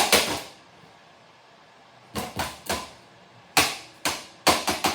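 Plastic Nerf toy blaster being hit repeatedly, sharp hollow knocks coming in small groups, with a quicker run of blows near the end.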